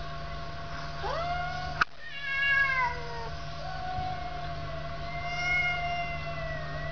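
Two domestic cats caterwauling at each other in a fight standoff: long, drawn-out yowls that rise, fall and waver in pitch, at times overlapping. A single sharp click comes just under two seconds in, over a steady low hum.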